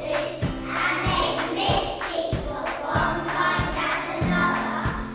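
A group of young children singing a song together over a musical accompaniment with a steady beat.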